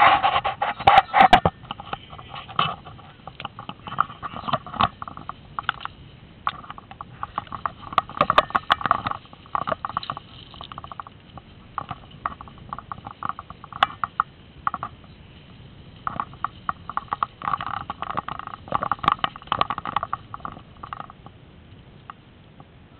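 Tall grass and leaves rustling and scraping against the camera and the airsoft rifle as they push through dense vegetation, with scattered short clicks and knocks of gear handling. The rustling comes in irregular spells, fading near the end.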